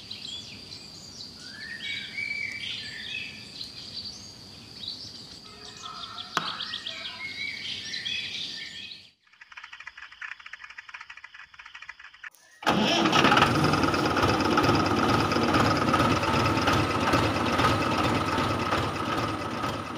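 Birds chirping for the first half. Then, after a brief stretch of faint fast ticking, the small motor of a DIY toy tractor starts abruptly about two-thirds of the way in and runs steadily and loudly, with a steady whine on top.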